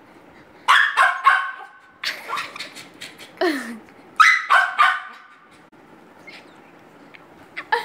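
Pomeranian puppy barking in four quick runs of high, sharp barks, stopping about five seconds in. It is demand barking at a flower held out of its reach.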